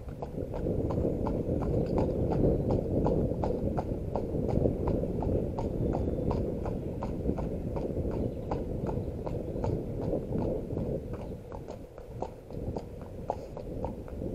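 A horse's shod hooves clip-clopping on a tarmac road at a walk, with sharp, evenly spaced strikes in a steady rhythm. A low rushing noise runs underneath and is loudest in the first half.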